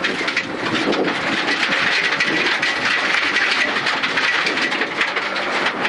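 Suzuki Ignis Sport rally car's 1.5-litre engine running hard, heard inside the stripped cabin at speed on gravel, with steady tyre and gravel noise and many small clicks of stones against the car.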